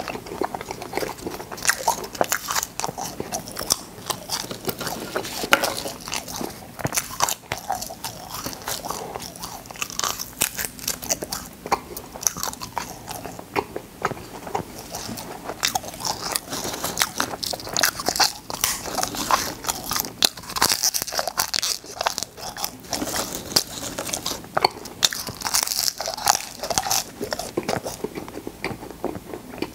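Close-miked chewing and crunching of cola-flavoured popping candy: a dense, irregular run of sharp crunches and clicks.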